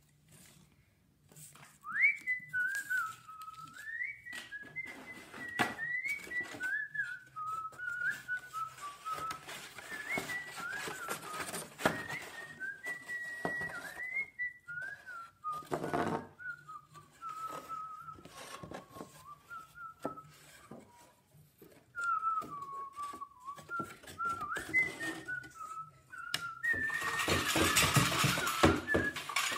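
A person whistling a wandering tune with short breaks, over scattered rustling and knocks of paper and card being handled. Near the end a louder stretch of paper rustling comes in under the whistling.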